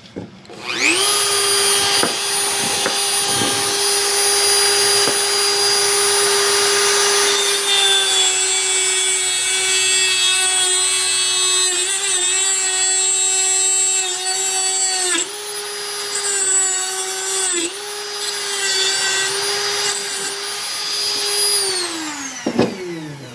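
Dremel rotary tool spinning up to a steady high whine, then cutting off the end of a screw. Its pitch dips briefly each time it bites into the metal, and it is switched off and winds down near the end.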